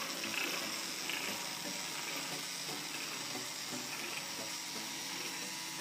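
Small electric motor of a breadboard car whirring steadily as it spins the propeller at the back.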